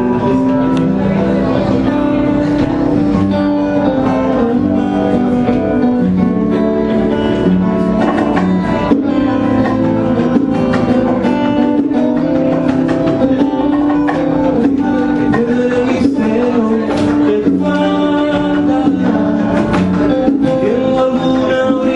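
A small band playing live: acoustic guitar strumming chords over electric guitar, bass and hand percussion, with a man's voice singing over it toward the end.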